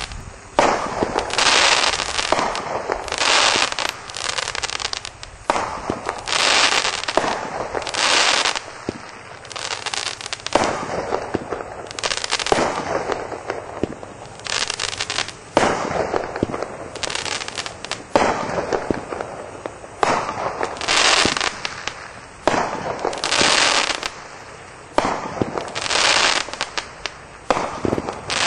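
A 16-shot consumer fireworks cake firing its shots one after another, about one every one to two seconds. Each shot is a short rush of noise broken up by many sharp little cracks.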